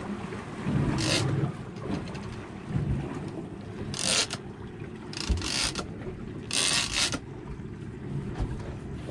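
Steady low rumble of wind and sea around a boat, with four short hissing rushes, each under a second, breaking in about one, four, five and a half and seven seconds in.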